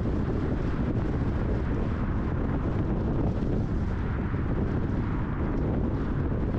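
Steady road and wind noise of a car driving at highway speed, a dense rumble heaviest in the low end.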